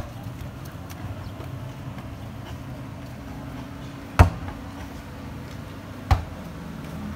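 Three sharp single thumps, unevenly spaced: one right at the start, one about four seconds in and one about six seconds in, over a steady low background noise.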